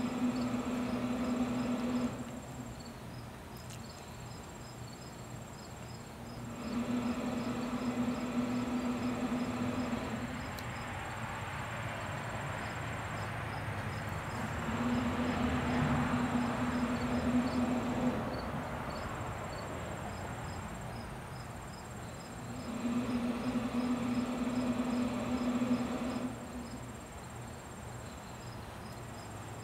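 Pellet smoker running, its motor hum switching on for a few seconds and off again about every eight seconds. Insects chirp steadily behind it.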